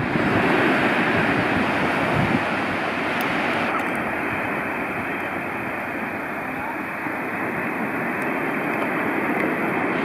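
Small waves breaking and washing up a sandy beach, a steady rushing surf noise, with wind gusting on the microphone.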